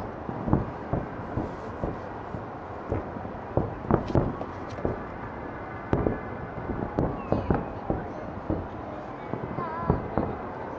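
Fireworks salute: aerial shells bursting in an irregular run of bangs, at times several in quick succession, with a few faint whistles in the second half.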